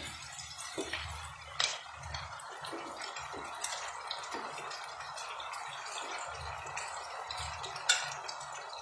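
Wet boiled macaroni being spooned from one pan into a frying pan of simmering sauce: soft wet drips and plops. A spoon knocks against the pan sharply twice, about a second and a half in and near the end, over a steady low hiss.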